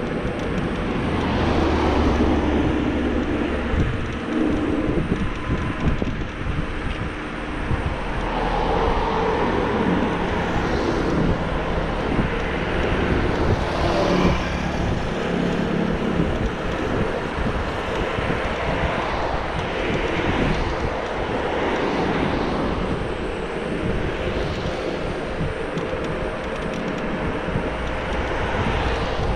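Riding noise on a Xiaomi Mi Pro 2 electric scooter moving along a road at speed: wind rushing over the microphone and a steady rumble of the tyres on the asphalt, swelling a little now and then.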